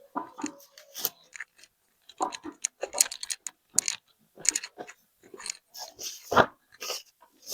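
Handling noises: a string of short, irregular clicks and rustles, a few every second, with no steady tone.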